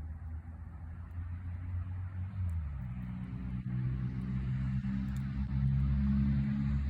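Low, steady snoring, growing louder toward the end.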